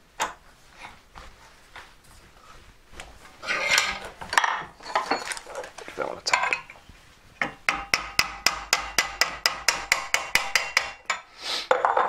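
Steel draw plates clinking and scraping against each other and against a sterling silver sheet being pressed shut between them. From about halfway there is a fast run of light metallic taps, about seven a second, with a faint ring.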